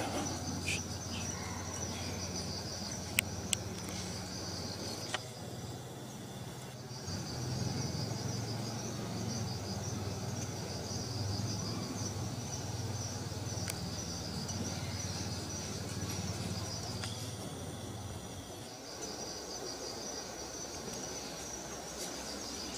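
Insects chirping in a steady, high, pulsing trill that stops for a second or two twice, over a low steady hum. A couple of sharp clicks sound about three seconds in.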